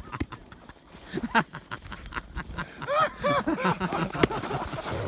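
Two dogs playing in snow: paws crunching on the snow, and about three seconds in a quick run of short, high-pitched yips.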